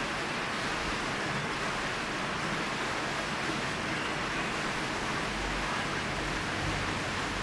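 Hard, steady rain falling on a tin roof and the street, an even hiss of downpour. A low rumble comes up under it near the end.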